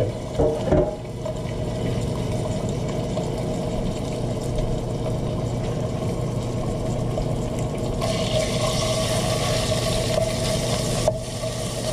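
Chopped smoked bacon sizzling in a preheated, oiled stainless-steel frying pan, with a couple of light knocks in the first second as the pieces land. The sizzle grows brighter about eight seconds in, when the pieces are spread out with a wooden spoon. A steady hum runs underneath.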